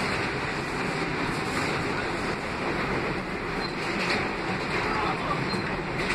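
R160 subway car running along the track, heard from inside the car: a steady rumble and rail noise that holds even, with no braking or stop.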